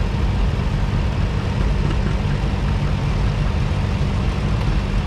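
Vintage farm tractor engines running steadily, a low even engine drone with no changes in pace.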